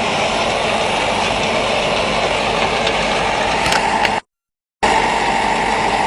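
Sand screening and washing plant running: a steady, dense mechanical noise that cuts out for about half a second around four seconds in, then resumes.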